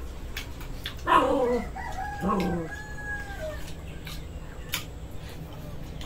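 A rooster crowing once, starting about a second in: two short syllables, then a long held final note.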